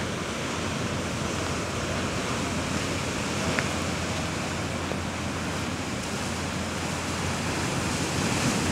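Ocean surf breaking and washing over shoreline rocks, a steady rushing noise that swells a little near the end.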